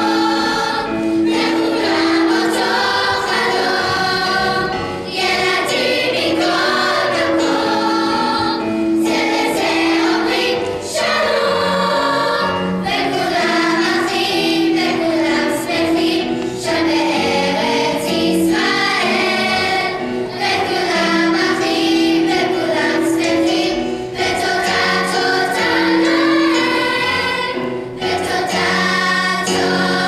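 Children's choir of girls singing together, with electric keyboard accompaniment.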